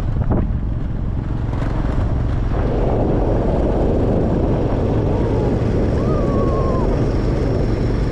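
Car driving along a road: steady engine and road rumble with some wind noise, growing fuller about two and a half seconds in. A faint short wavering whistle sounds near the end.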